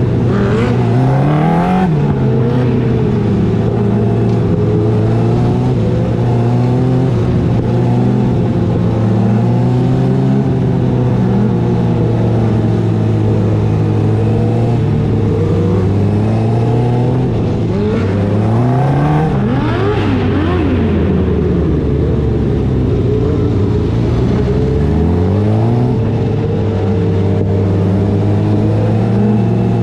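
Engine of a small open-wheel dirt-track race car heard onboard at racing speed. Its pitch climbs and drops every few seconds as the driver gets on the throttle and lifts for the corners, and another car's engine is heard close by.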